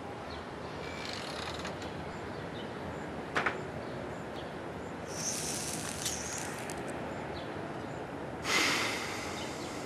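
A dog breathing in short, breathy rushes over a steady hiss of outdoor ambience: a brief click about three and a half seconds in, a rush of air a little after five seconds, and a louder burst of breath near the end.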